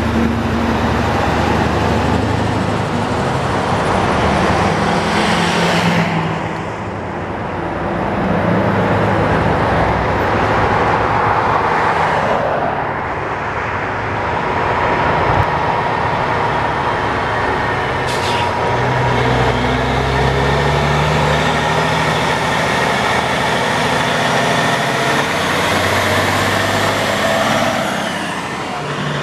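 Diesel semi-trucks pulling dump trailers and passing cars on a highway: engines running and tyre noise that swell and fade with each pass-by, dipping briefly a few times.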